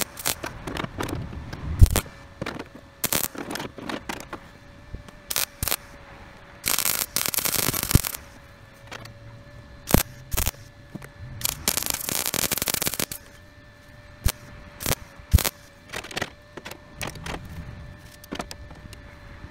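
Wire-feed (MIG) welder laying tack welds on the thin sheet steel of a truck fender: a string of short welds, most a fraction of a second long and two lasting just over a second, with pauses between them.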